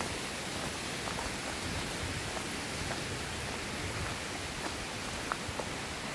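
Steady rushing of a stream flowing beside the lane, with a few faint footsteps on the wet tarmac.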